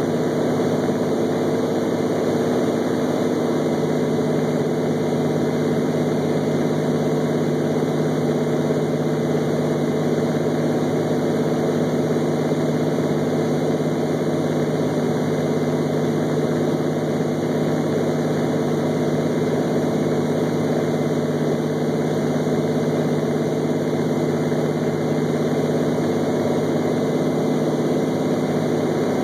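Cessna 206's six-cylinder piston engine and propeller droning at steady power, heard inside the cabin. The pitch and level hold constant throughout.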